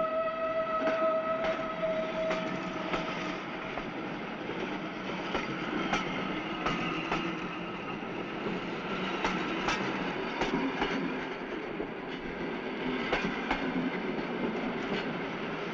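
Railway station ambience: a long held tone fades out over the first three seconds or so, then a continuous hubbub of trains and people with scattered sharp clacks.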